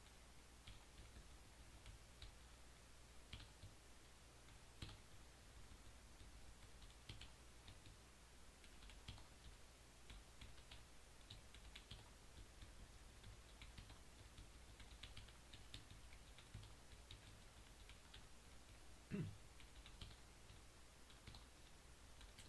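Faint, scattered clicking at a computer, over a steady low hum. One brief low sound about 19 seconds in is the loudest moment.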